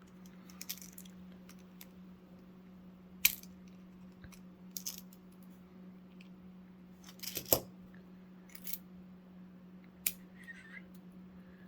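Scattered sharp metallic clicks and taps as small padlock parts and a tool are handled during disassembly of a lockout padlock, the loudest about three seconds in and again about seven and a half seconds in, over a steady low hum.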